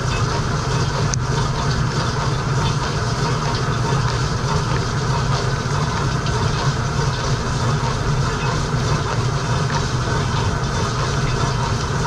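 Frigidaire Gallery dishwasher running its wash cycle, heard from inside the tub: water jets spraying and splashing against the racks and dishes over the steady low hum of the wash pump.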